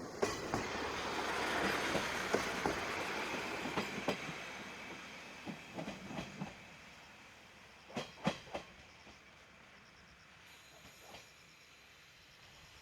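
Kominato Railway diesel railcar running past, wheels clacking over rail joints. The running noise swells in the first two seconds, then fades as the train draws away, with a last tight group of three clacks about eight seconds in.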